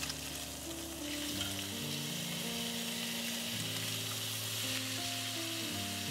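Ribeye steaks sizzling steadily as they sear in a hot cast iron grill pan, with soft music playing underneath.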